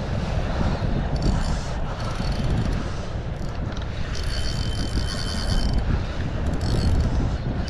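Wind rumbling on the microphone, with a patch of higher hissing from about four to six seconds in.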